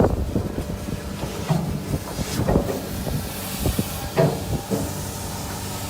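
Industrial vacuum collection truck running: a steady mechanical hum under a hiss of rushing air, with scattered short knocks.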